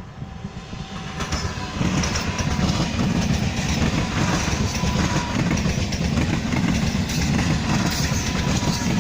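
A train passing close by on the station tracks, its rumble building over the first two seconds and then holding steady and loud.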